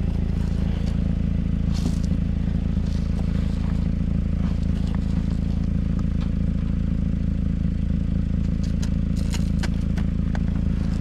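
2011 Mazda 3's four-cylinder engine idling steadily while its exhaust leaks, with scattered light clicks and scrapes over the hum.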